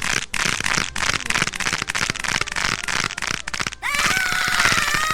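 Rapid, dense crackling and popping of knuckle joints being cracked over and over. About four seconds in, a person's high-pitched cry rises and holds.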